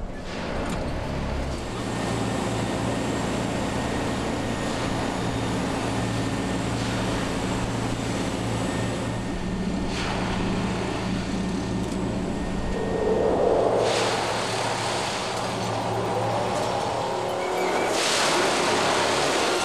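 Plasser & Theurer Dynamic Stopfexpress 09-4X track tamping machine at work: a steady engine drone under a broad mechanical noise. The sound shifts a few times, growing louder and hissier near the end.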